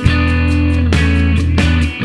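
Background music led by guitar, with a steady bass underneath.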